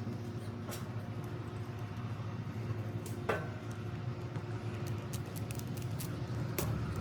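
Scattered light clicks and taps of a metal bracket and screws being handled and fitted against an oil separator can, with one sharper knock about a third of the way through and a few more clicks near the end, over a steady low hum.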